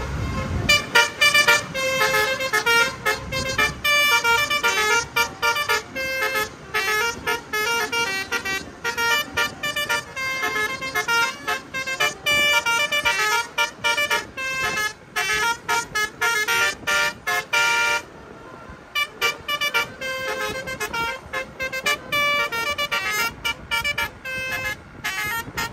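Bus basuri melody horns playing a tune: a quick run of stepping pitched horn notes, broken off briefly about eighteen seconds in and then starting again.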